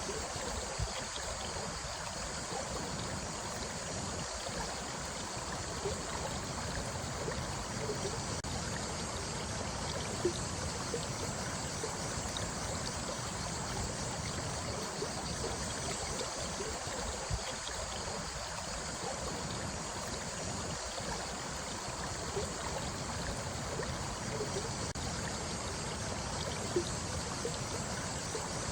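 Running water of a small stream flowing and trickling, with the occasional small splash.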